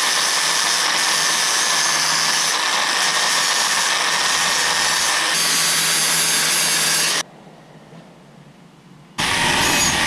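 Milwaukee angle grinder with a flap disc grinding down TIG welds on a cast aluminum wheel rim: a steady grinding noise over a constant motor hum. It breaks off for about two seconds near the end, then starts again.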